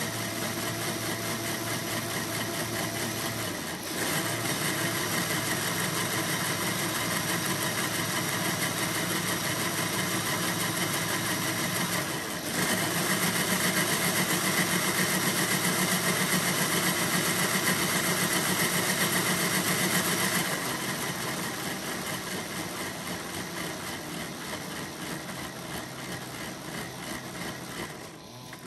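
Lego Technic motor driving a plastic twin-cam engine model and gearbox, a steady whir of plastic gears and moving parts. It dips briefly about four seconds in and again about twelve seconds in, running louder after each dip, then grows gradually quieter over the last eight seconds.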